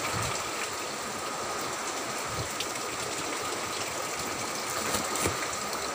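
Heavy typhoon rain pouring down steadily, really loud, as an even noise with no letup.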